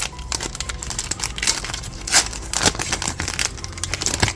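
Foil wrapper of a trading card pack crinkling and tearing as it is ripped open: a dense run of irregular sharp crackles.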